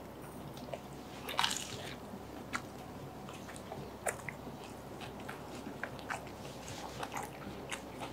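People chewing and biting into fried samosas, with scattered short crisp crunches of the pastry; the loudest crunch comes about a second and a half in.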